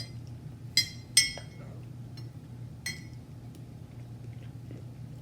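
A spoon clinking against a glass cup three times, each clink ringing briefly: two close together about a second in, and one near the three-second mark.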